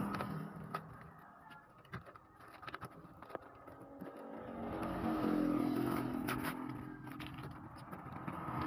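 A cardboard shipping box is pulled and torn open around a plastic-wrapped computer case, giving scattered rips, crackles and crinkles. A motor vehicle engine runs in the background and gets louder past the middle.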